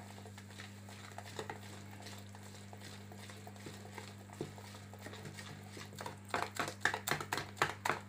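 Wire whisk beating eggless-or-egg sponge-cake batter in a bowl, as the freshly sifted flour is mixed into the wet ingredients. It gives soft quick taps at first, then from about six seconds in louder, rhythmic strokes, about three or four a second. A steady low hum runs underneath.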